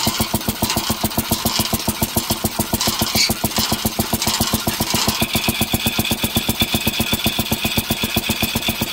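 1926 Wade drag saw running unloaded: its single-cylinder engine fires at a steady fast beat of about eight a second as it drives the long crosscut blade back and forth with nothing to cut. A thin high whine joins in about halfway through.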